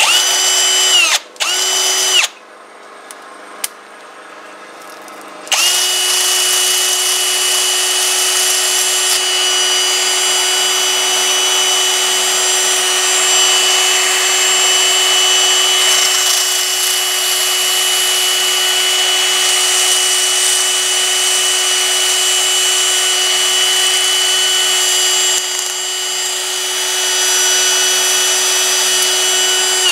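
Electric power tool motor, started twice in short bursts with a rising whine as it spins up, then started again about five seconds in and kept running at a steady high-pitched whine.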